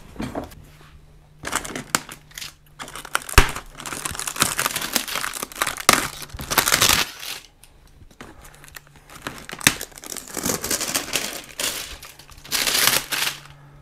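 Plastic shrink wrap being torn off a hard plastic tool case, crinkling and tearing in irregular bursts, with a single sharp knock about three seconds in.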